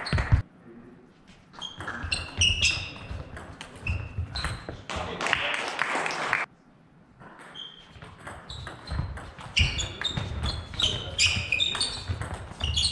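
Table tennis doubles rally: the ball clicking off bats and table, with shoes squeaking and feet thudding on the sports hall floor, broken by a short lull about halfway through.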